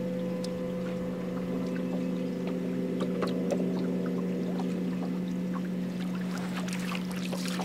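Boat motor running steadily, a constant low hum with a few faint ticks over it.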